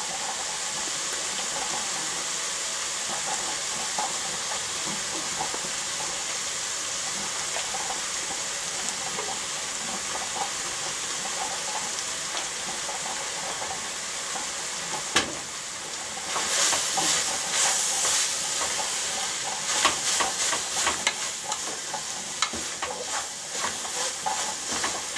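Ground meat sizzling steadily in a pot, the sound of the fat and liquid having been cooked off. About two-thirds of the way through there is a knock, then a spoon scrapes and stirs the meat against the pot in quick strokes.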